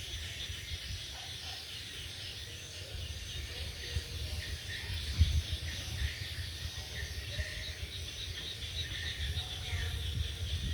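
Rain-and-thunder nature ambience: a steady high hiss with a flickering chirring in it, over a low, uneven rumble that swells and fades.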